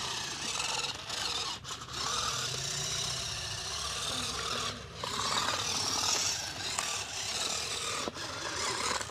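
Continuous rubbing and scraping as the tape-wrapped homemade toy car is handled and moved about on cardboard, with brief pauses about three times.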